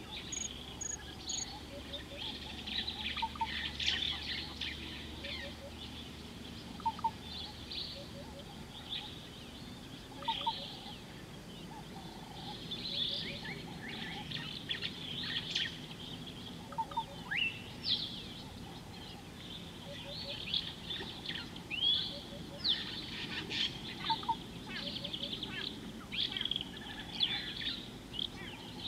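Several birds calling together in the bush, a busy mix of high chirps and trills. A lower short call of a few notes repeats about every second and a half underneath.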